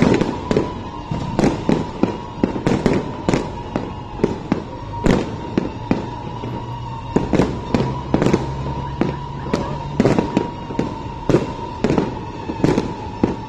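Fireworks display: a rapid, irregular run of bangs, often several a second, with a steady tone running underneath.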